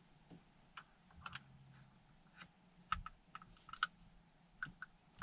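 Scattered light clicks and taps of a metal paddle shifter extension being fitted against a steering-wheel paddle shifter, with two sharper clicks near the middle.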